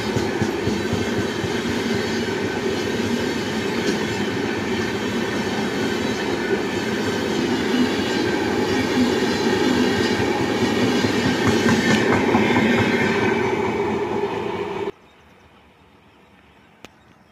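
Humsafar Express passenger coaches rushing past at speed, their wheels running hard over the rails in a dense, steady clatter that swells about twelve seconds in. About fifteen seconds in the sound cuts off abruptly, leaving only faint background with a couple of small clicks.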